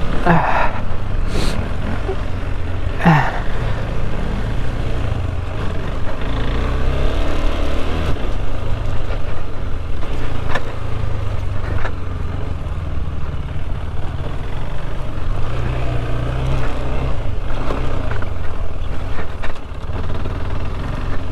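KTM 390 Adventure's single-cylinder engine running as the bike is ridden along a dirt trail, the revs rising and falling. A couple of sharp knocks come through, about a second and a half in and again about ten seconds in.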